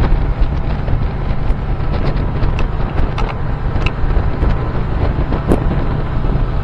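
Outboard motor running steadily on a boat under way, with heavy wind buffeting the microphone and a few sharp knocks.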